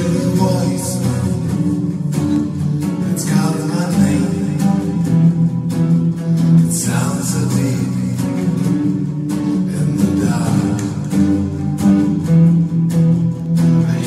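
Background music led by plucked acoustic guitar, with steady held notes underneath.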